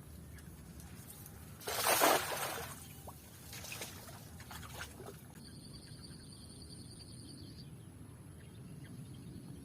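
Water splashing and trickling during net fishing, loudest in one burst about two seconds in, with two smaller splashes after it. A high, pulsing insect trill follows for about two seconds.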